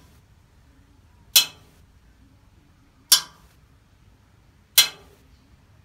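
Rebound test on a Fisher & Norris anvil, a steel-faced cast-iron anvil. Something small and hard is dropped onto the face three times, about 1.7 s apart, giving a sharp metallic clink with a short ring each time. The rebound is judged basically perfect, the sign of a hard, sound face.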